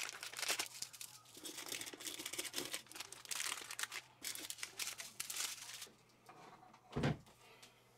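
Clear plastic desiccant sachets crinkling and crackling as they are handled, with a single dull thump about seven seconds in.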